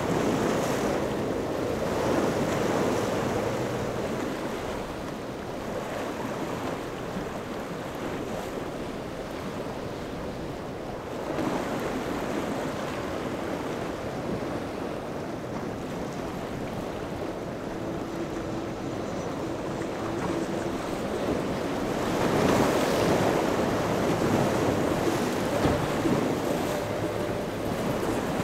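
Rough surf at an ocean inlet, with waves surging and breaking in swells that are loudest near the end, and wind gusting across the microphone. A faint engine drone from boats in the inlet comes and goes underneath.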